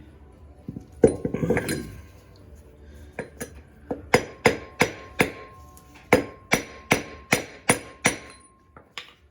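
Hammer blows on metal, about a dozen sharp ringing strikes at two to three a second with a brief pause midway, knocking on a worn wheel bearing to drive it out of its housing. Some clattering of metal parts comes first.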